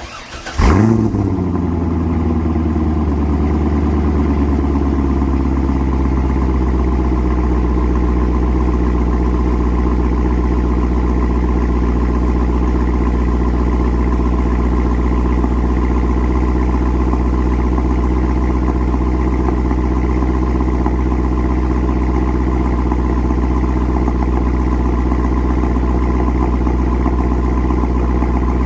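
Corvette C5 Z06's LS6 V8 starting: it catches about half a second in with a quick rev flare, then settles over a few seconds into a steady idle.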